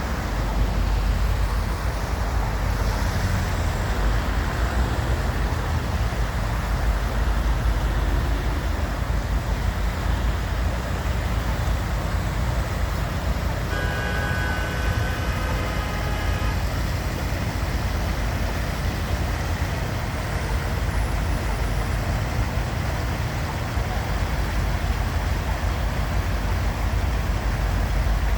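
Steady low rumble of a passing train. About halfway through, a brief chord of several tones sounds for about two seconds.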